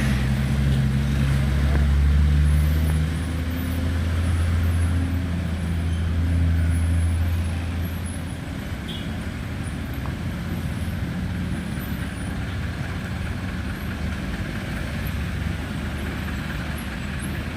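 Heavy diesel engine running with a deep, steady hum for about the first eight seconds, then fading away, leaving steady road traffic noise.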